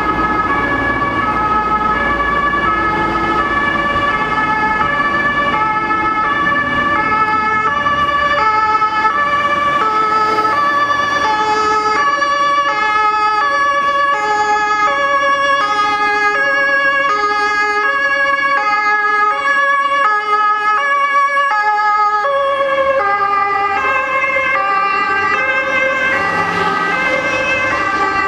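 German two-tone emergency-vehicle sirens (Martinshorn) sounding loudly, alternating between a high and a low note in a regular rhythm. From about ten seconds in, two or more sirens overlap out of step, as several emergency vehicles approach together.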